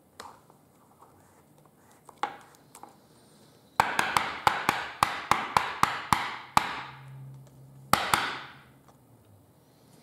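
Trading cards and their plastic packaging being handled: a quick run of about a dozen sharp crackling clicks over a rustle, roughly four a second, then one more click and rustle near the end.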